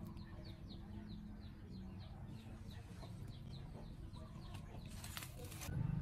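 A bird, most like a chick or small fowl, chirping over and over in short falling notes about three a second, thinning out partway through. A brief scraping rustle about five seconds in.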